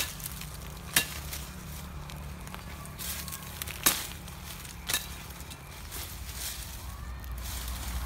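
A machete chopping at a thin woody stem: four sharp cracks in two pairs about a second apart, with dry leaves rustling underfoot.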